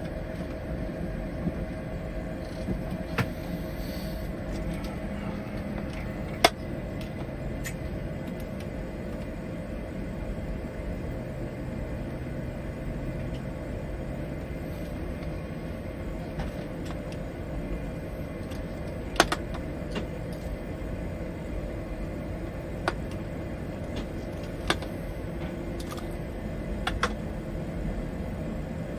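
Steady hum and rumble of an Airbus A220 flight deck during engine start, with a few sharp clicks scattered through it; the loudest clicks come about six and nineteen seconds in.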